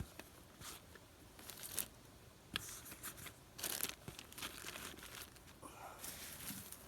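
Close rustling and crinkling with scattered sharp snaps and clicks, coming in irregular bursts, as gear and brush are handled.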